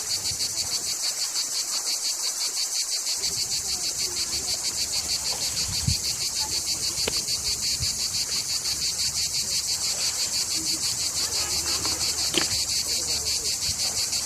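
Insects, crickets or cicadas, chirring in a steady, high, pulsing chorus that beats several times a second, with a few faint knocks now and then.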